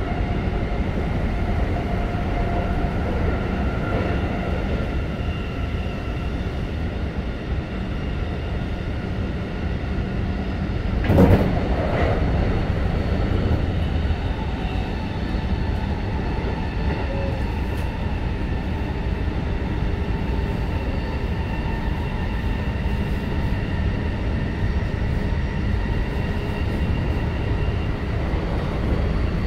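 Running sound inside a Keikyu 1500 series electric train car with Toyo IGBT-VVVF inverter control: steady rumble of wheels on rail, with the whine of the inverter and traction motors as several steady tones over it. A brief loud thump about eleven seconds in.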